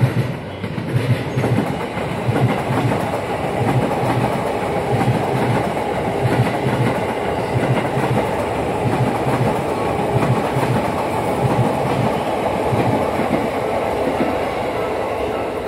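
Saikyo Line E233-series electric commuter train passing close by, a steady rumble of wheels on rail with a rhythmic clickety-clack as the bogies cross the rail joints.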